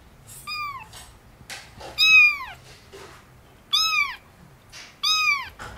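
Very young kitten mewing four times, about a second and a half apart, each high-pitched cry rising and then falling.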